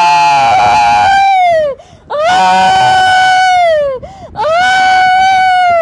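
A woman screaming in three long, high wailing cries, each held steady and then dropping in pitch at its end, with short breaks between them.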